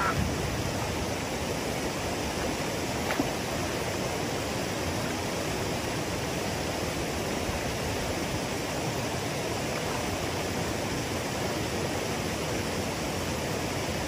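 Mountain stream water rushing steadily over rocks, with one small knock about three seconds in.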